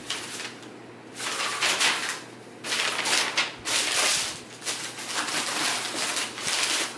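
Tissue paper in a sneaker box rustling in several bursts as it is handled and pulled back by hand.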